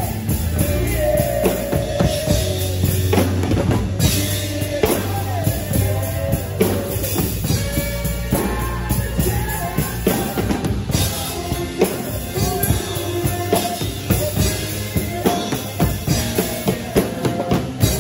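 Rock drumming on an acoustic drum kit, with cymbal crashes and dense hits on toms and snare over a steady bass drum, played along with music that carries a melody line.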